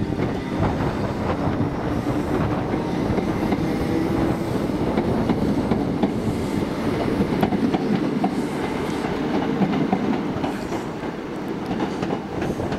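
A train running through the station: a steady, even running noise with scattered clicks of the wheels over the track.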